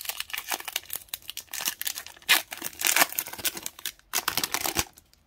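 Foil wrapper of a Pokémon booster pack crinkling and tearing as it is ripped open by hand: a run of crackles, a brief pause, then one last burst near the end.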